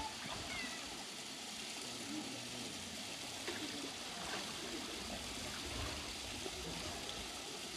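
Steady rush of flowing water in a polar bear's pool.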